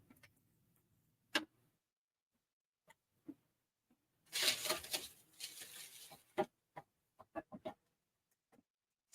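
Handling of a cardboard shipping box and its packing: scattered knocks and taps, with a rustling, scraping stretch of about two seconds near the middle.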